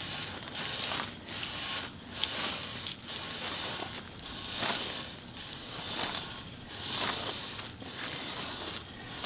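Steel turf plug cutter being twisted and forced into very hard, compacted lawn soil: a crunching, grating scrape of metal through dirt that comes in repeated strokes about once a second.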